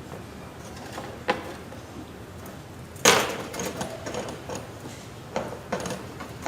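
Handling noises of a motor coil bundle being taken apart on a bench: a sharp click about a second in, a louder knock with a short ring at about three seconds, then a few smaller knocks.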